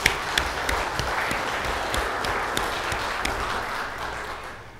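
Church congregation applauding: steady clapping that thins out and fades away near the end.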